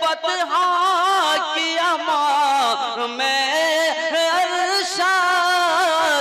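A man singing a naat, an Urdu devotional poem in praise of the Prophet, into a microphone. He draws out long held notes that waver and bend in ornamented turns.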